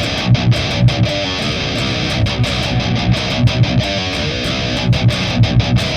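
Heavily distorted high-gain electric guitar, a Les Paul tuned to Drop C through a Boss GT-10 dual-amp patch summed to mono, playing a metal riff with rhythmic palm-muted low chugs.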